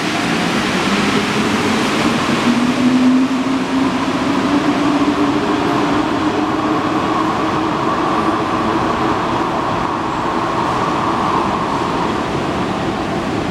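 Alstom NS-93 rubber-tyred metro train running, a steady rumble with a motor whine that rises in pitch over the first few seconds. A fainter, higher whine comes in about halfway through and fades.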